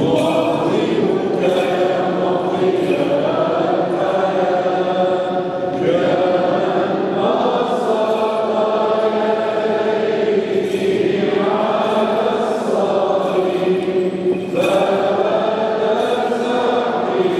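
Byzantine-rite liturgical chant: voices sing long-held, slowly moving notes, with brief breaks between phrases.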